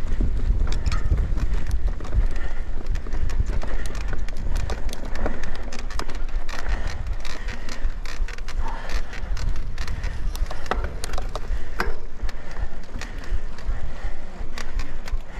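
Mountain bike being ridden over a dry dirt and grass track: wind buffeting the camera microphone with a heavy low rumble, tyre noise on the dirt, and frequent clicks and knocks as the bike rattles over bumps.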